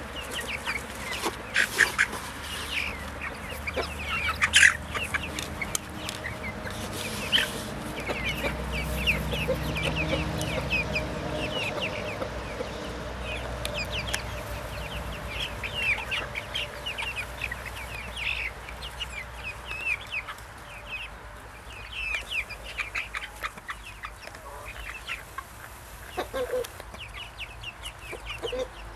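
A flock of young Brahma chickens peeping: many short, high calls, each falling in pitch, overlapping throughout, with a few louder calls in the first five seconds. A low rumble swells and fades under them in the middle.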